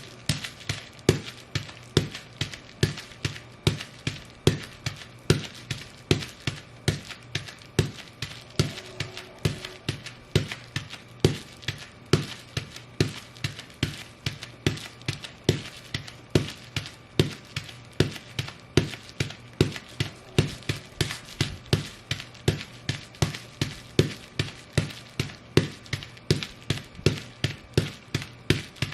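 Ugg boots stomping on bubble wrap, crushing it in a steady rhythm of about two stomps a second, each a sharp crunch.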